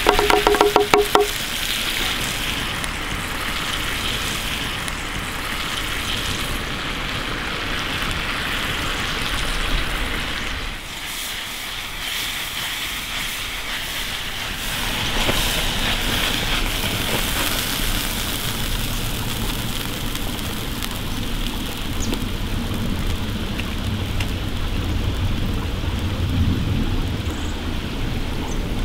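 Chicken curry sizzling in a pan over a campfire: a steady hiss like rain, with the fire crackling. Brief music fades out at the very start.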